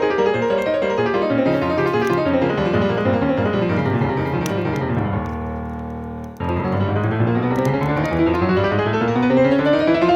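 Background piano music: quick runs of notes sweeping down and up, a held chord that fades about five seconds in, then a fresh rising run after a sudden cut about six seconds in.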